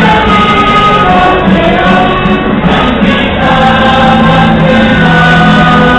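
Choir singing a communion hymn, loud and steady, in long held notes.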